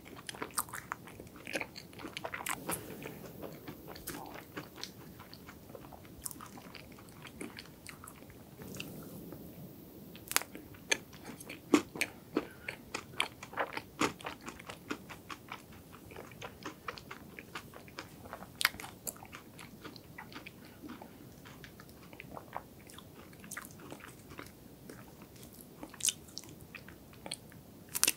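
Close-miked chewing of a mouthful of chocolate ice cream cake, with many small sharp crunches and moist mouth clicks scattered unevenly throughout.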